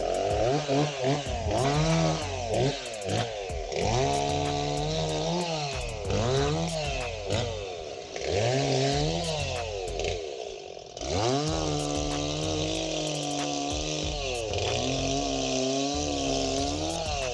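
Chainsaw running, its engine note rising and dropping again and again.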